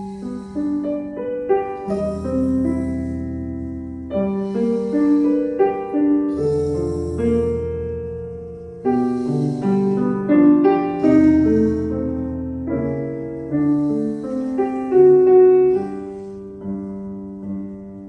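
Piano music: a slow melody of held notes over chords.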